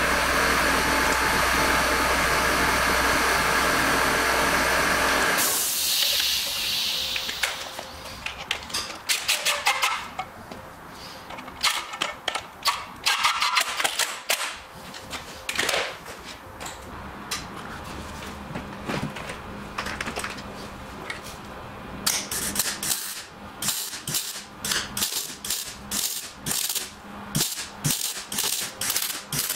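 Workshop tool noise: a loud steady running noise for about the first five seconds, then scattered clicks and knocks of tools on metal. Over the last several seconds arc welding crackles in quick regular pulses.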